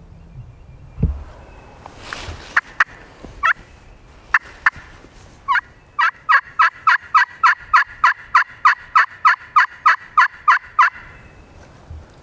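Turkey yelping: a few sharp clucks and single yelps, then a long, fast, even run of about twenty loud yelps at roughly four a second that stops about a second before the end.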